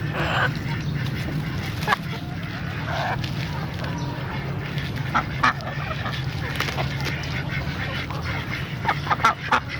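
Domestic fowl calling with short, sharp calls, a few about halfway through and a quick run of them near the end, over a steady low hum.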